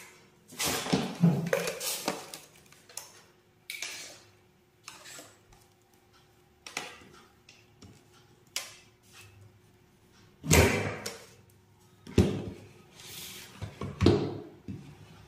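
Handling noise of plastic electrical fittings and wires: irregular knocks, clicks and a few short scrapes, as the mains supply lead and switchboard are connected to the wiring board.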